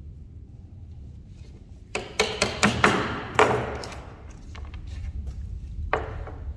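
Sharp wooden knocks and clacks from chisel work on a pine board at a wooden workbench: a quick run of about six about two seconds in, then one more near the end, each with a short ring-out.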